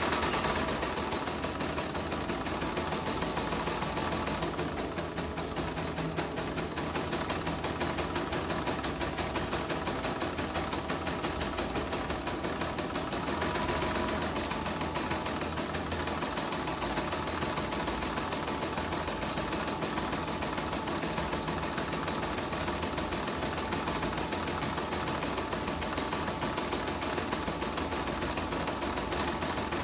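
CNY portable computerized embroidery machine, its covers off, running a test embroidery: the needle stitching at a steady rapid rate, a fast even clatter.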